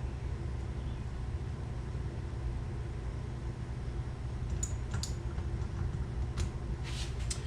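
Steady low background hum, with a few light clicks and taps in the second half.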